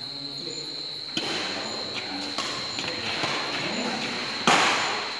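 Badminton rally: sharp racket-on-shuttlecock hits about a second in, twice more around two to two and a half seconds, and a louder, harder hit about four and a half seconds in. Quiet background chatter and a steady high whine run underneath.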